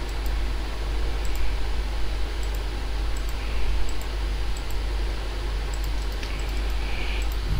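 Computer mouse clicking irregularly, a dozen or so short faint ticks, as points of a stitch line are entered. A steady low hum runs underneath.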